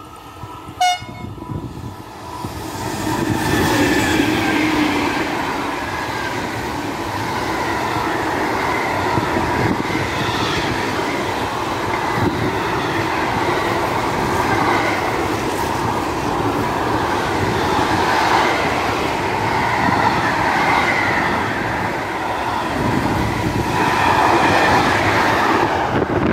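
Long electric freight train passing close by: a pair of BB 27000 electric locomotives go by first, then a rail-motorway train of low wagons loaded with lorry trailers follows with steady, loud wheel-on-rail noise. The sound swells about two seconds in and holds.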